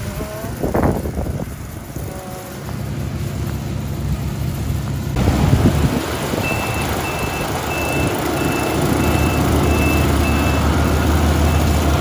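Yanmar CA300S combine harvester running steadily, its engine hum growing louder after a few seconds. In the second half its high electronic warning beeper sounds about eight times in a row, evenly spaced.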